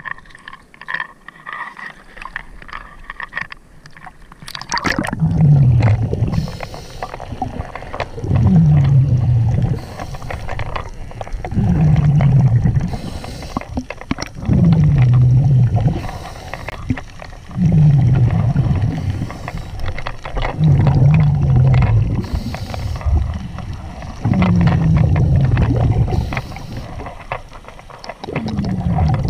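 A diver breathing underwater through a scuba regulator, in a steady cycle about every three seconds. Each exhalation is a loud bubbling rumble falling in pitch, and a short hiss follows it. For the first few seconds, before the breathing starts, there is only lighter splashing at the surface.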